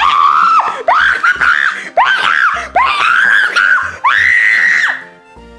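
A girl screaming: a run of about five long, high-pitched shrieks, each sliding up in pitch as it starts.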